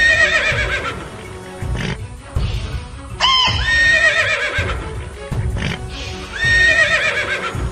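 A horse whinnying: the same whinny three times, about three seconds apart, over background music.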